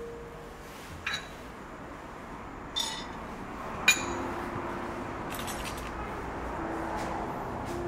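A few light clinks, then a handful of small hard pieces dropped into a dry non-stick frying pan with a sharp clatter about four seconds in, followed by a low steady hiss as the pan heats.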